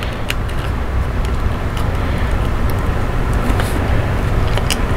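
Steady low rumbling background noise, with a few light clicks of plastic model parts being handled.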